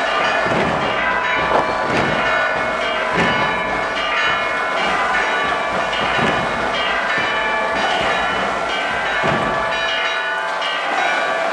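Church bells pealing, struck in quick, irregular succession, each stroke ringing on into the next.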